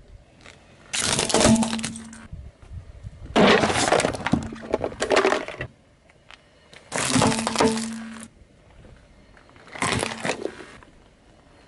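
A car tyre rolling over and crushing small objects one after another: four separate bursts of cracking and crunching, from a plastic toy monster truck, a cardboard box of hard candies and a water balloon.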